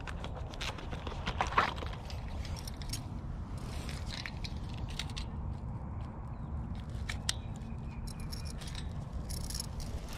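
Handling of a landed bullseye snakehead on grass with metal fish lip grippers: scattered clicks, taps and rustles as the gripper jaws close on the fish and it thrashes, over a steady low rumble.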